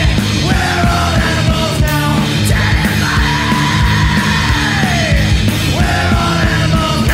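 Loud punk rock music: distorted electric guitar over a driving drum kit.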